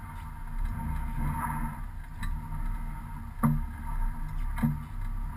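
Rallycross car's engine running, heard from inside the cabin as a steady low drone. Two sharp knocks about three and a half and four and a half seconds in.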